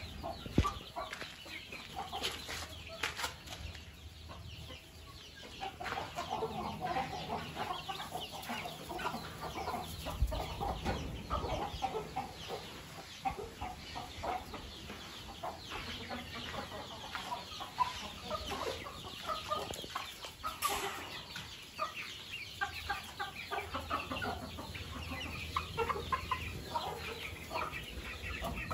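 A flock of Kadaknath and Aseel country chickens clucking, many short overlapping calls without pause. A sharp knock comes just after the start.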